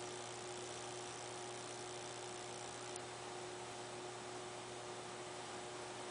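A steady electrical hum over a hiss, with a faint high whine that stops about three seconds in.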